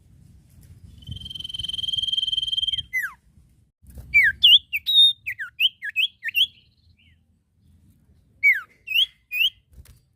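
Common iora singing. It holds one long steady whistle for about two seconds, which ends in a quick falling note. Then comes a rapid run of short sweeping whistled notes, and near the end three more.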